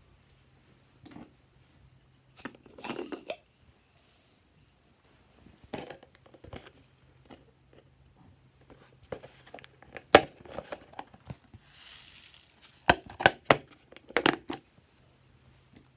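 Hard plastic case being handled: irregular crinkles, taps and sharp plastic clicks. The loudest click comes about ten seconds in, and a close cluster of clicks comes near the end.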